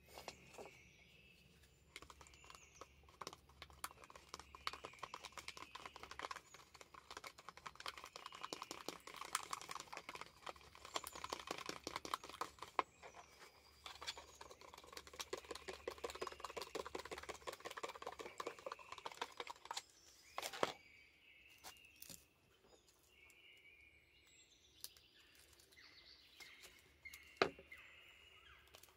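Fork rapidly beating an egg in a small bowl, a fast, even clatter of ticks that stops about two-thirds of the way through. Birds chirp at the start and again near the end, with a couple of single knocks in between.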